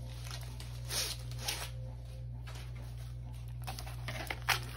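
Soft rustling and crinkling of a paper-and-plastic diamond painting kit packet being handled and slid onto a stone countertop, a few faint scattered crinkles at first and busier handling near the end, over a low steady hum.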